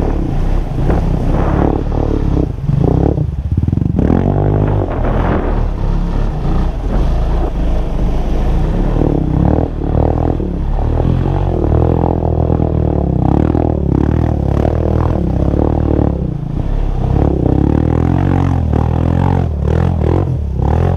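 ATV engine running and revving as the four-wheeler pushes through shallow marsh water. The engine pitch rises and falls several times with the throttle.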